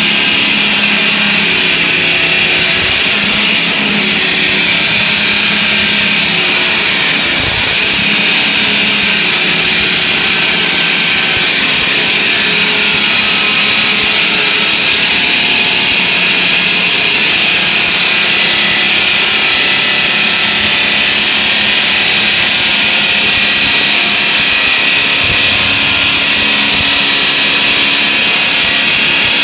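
Automatic track-mounted circular saw cutting a concrete slab: the blade grinds through the concrete with a loud, steady, high-pitched hiss, with a brief dip about four seconds in.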